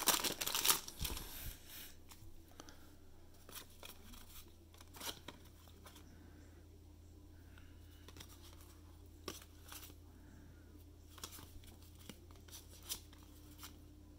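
Foil wrapper of a 1992 Upper Deck baseball card pack crinkling and tearing as it is pulled open in the first second, followed by scattered faint clicks and flicks of the cardboard cards being leafed through by hand, over a faint steady hum.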